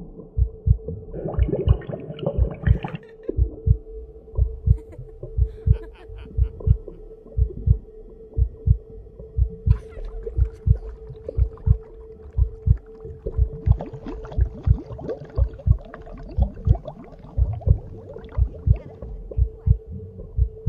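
Heartbeat: low thumps in lub-dub pairs repeating steadily, a little faster than one beat a second, over a constant hum. Wavering pitched sounds rise over it twice, about a second in and again in the second half.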